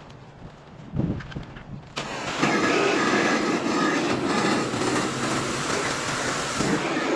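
Pressure washer at work: a loud, steady hiss of spray and machine noise. It drops out for about two seconds near the start, with a short low rumble about a second in, then runs steadily again.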